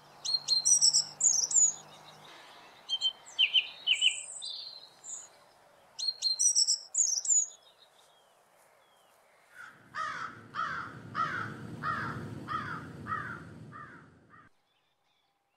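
Wild birds singing: short, high, quick chirping phrases repeated about every three seconds, then from about ten seconds in a series of about nine lower, downward-sliding call notes.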